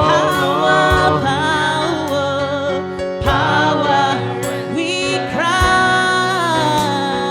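Gospel worship song in a church service: singing over sustained keyboard chords, with a few drum hits.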